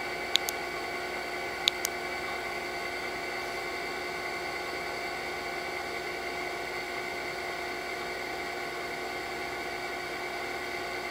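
A few short clicks in the first two seconds, from a BlackBerry Bold 9650's trackpad or keys being pressed to open an app. Under them runs a steady background hum made of several held tones.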